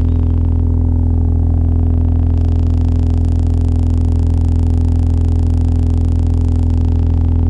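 Analog synthesizer drone: a loud, steady low bass tone layered with several higher sustained tones, wavering slowly about once a second.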